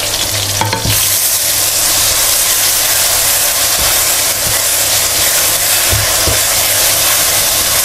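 Blended spice paste hitting hot oil and caramelised brown sugar in a frying pan, sizzling loudly from about a second in, with a few light knocks of a wooden spatula against the pan.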